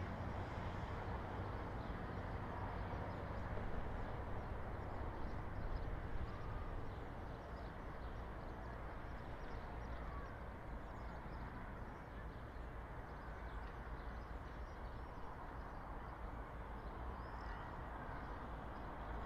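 City street ambience: a steady rumble of distant traffic, with faint background chatter and small scattered high sounds. It is a little louder in the first few seconds.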